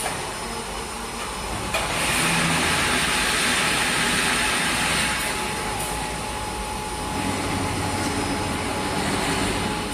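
Semi-automatic fence mesh welding machine running: a steady mechanical noise, with a sharp click about two seconds in followed by a louder hissing rush lasting about three seconds.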